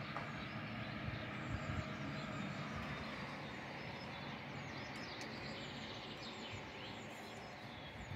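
Town ambience: a steady hum of distant traffic with a few faint bird chirps.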